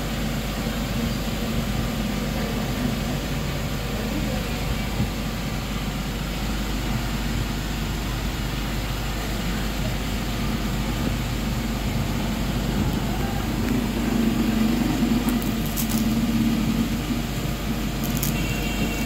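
Steady low background rumble. Near the end come a few light clicks as the tools in the case are handled.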